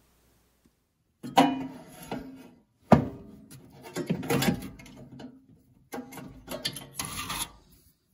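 Hand handling noise as the blower motor's electrical cord is pulled and worked free around the stove's sheet-metal exhaust housing: several bursts of rubbing, scraping and knocking that start about a second in.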